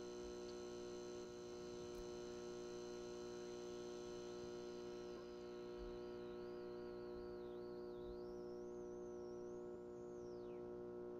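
Faint, steady electrical hum with many overtones. From about halfway through, a thin high tone wavers up and down over it, then drops away sharply near the end.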